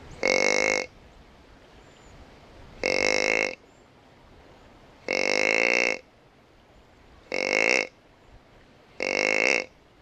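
Whitetail deer grunt calling: five drawn-out grunts, each under a second long, evenly spaced about two seconds apart.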